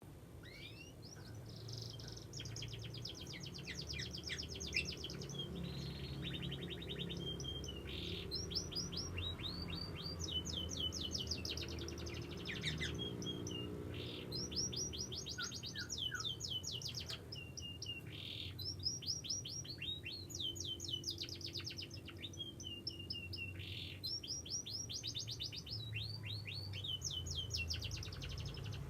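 Young domestic canary singing: long phrases of fast trills and rolling repeated notes, one after another with short breaks between them.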